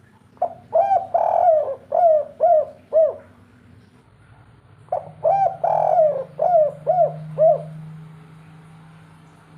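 Spotted dove (tekukur) cooing its 'kuk 3' call twice. Each phrase has a couple of short coos, a longer drawn coo, then three short falling 'kuk' notes.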